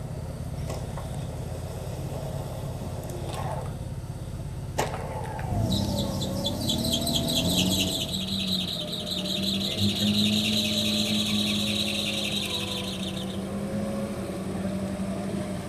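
Engine idling, then about five and a half seconds in an electric winch on an off-road Suzuki Grand Vitara starts running. It makes a steady hum with a fast-rattling high whine for about eight seconds; the whine stops and the hum fades near the end.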